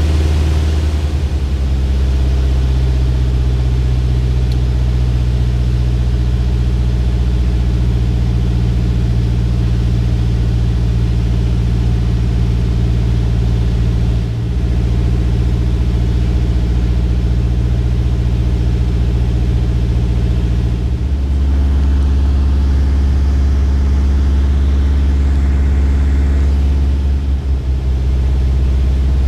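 Single-engine light aircraft's engine and propeller droning steadily, heard from inside the cockpit during the landing approach. The engine note changes abruptly about two-thirds of the way through, as power is adjusted.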